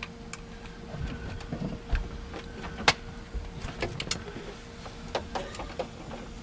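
Scattered clicks, taps and scrapes of a hand tool working on the plastic trim of a Ford F-150's dashboard as it is taken apart. There is a sharper click about three seconds in and two more about a second later. A faint steady hum runs underneath.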